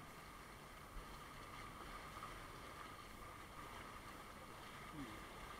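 Faint, steady churning of hot tub jets and bubbling water.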